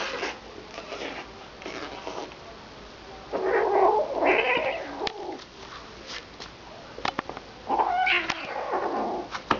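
Kittens play-fighting: a kitten yowls war cries, twice at length, about three seconds in and again near the end, with scattered sharp clicks between the cries.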